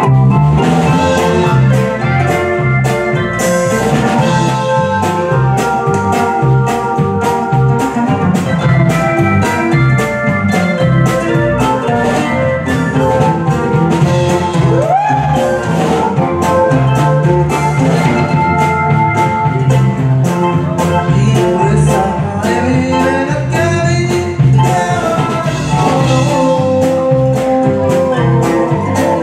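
Band playing an instrumental passage: an accordion carries the melody over electric bass, guitar and a steady drum beat.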